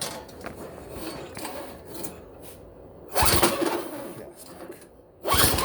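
Recoil starter rope on a Toro CCR 1000 snowblower's 3 hp engine pulled twice, about three seconds in and again near the end. Each pull spins the engine over with a rasping whir, and it does not start: he is cranking it to check for spark.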